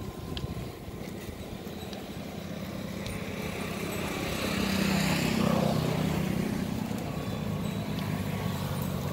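A motor vehicle passing on the road: a steady engine hum with tyre noise that swells to its loudest about five seconds in, then fades.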